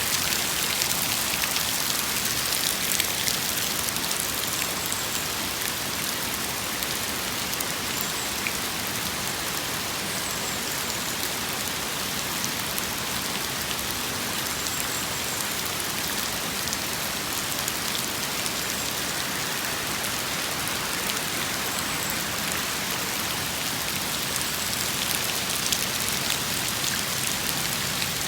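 Steady rain falling: an even hiss of rain with many small drop ticks.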